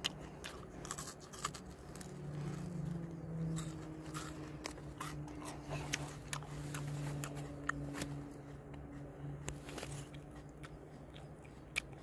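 Close-up biting and chewing of raw Chinese asparagus (cheonmundong) tuber, heard as scattered crisp clicks and crunches. A steady low drone comes in about two seconds in and fades out near the end.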